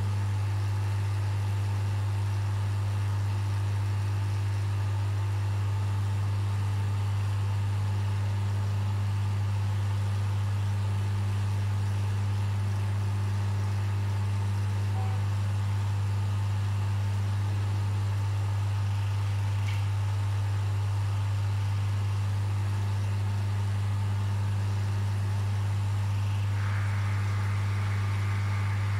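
Aquarium pumps and filtration equipment running: a steady low electrical hum with a faint hiss of moving water. A slightly brighter hiss joins near the end.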